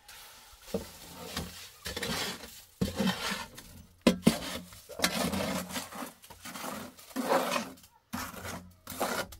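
Hard tool scraping in uneven repeated strokes, with two sharp clinks about four seconds in.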